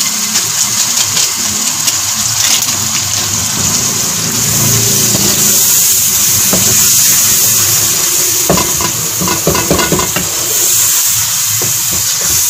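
Tomato-onion masala sizzling in a metal pot while a wooden spoon stirs it, scraping the pot. A quick run of knocks from the spoon comes about two-thirds of the way through.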